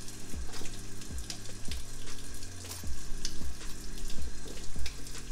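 Kitchen faucet running steadily into a stainless steel sink, with background music that has a steady beat.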